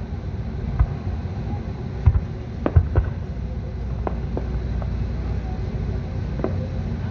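Fireworks display: aerial shells bursting in a series of sharp bangs, several close together about two to three seconds in, over a steady low rumble.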